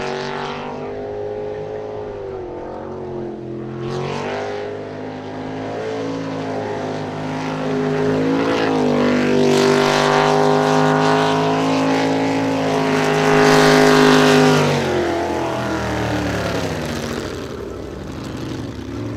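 Jet sprint boat's engine running flat out through a twisting course, its pitch dipping and climbing again and again through the turns, loudest about ten and fourteen seconds in and easing off near the end, with the hiss of its water jet and spray.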